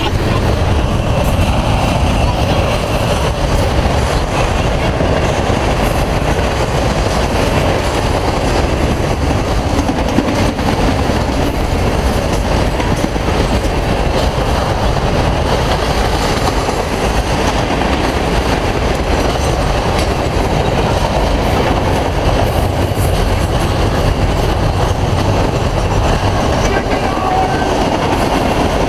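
Norfolk Southern freight train's autorack cars rolling past: a steady, loud rumble of steel wheels on the rails that does not let up.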